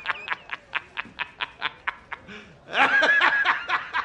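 A man laughing heartily in quick, rhythmic bursts of about four or five a second, then breaking into a louder, higher laugh about three seconds in.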